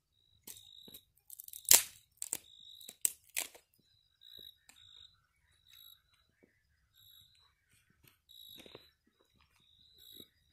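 Insects chirping in short, repeated calls at one steady high pitch. A few loud crunching clicks come between about one and a half and three and a half seconds in.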